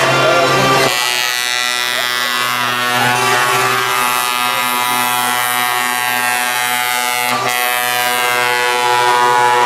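Truck air horns held in one long, steady multi-note blast.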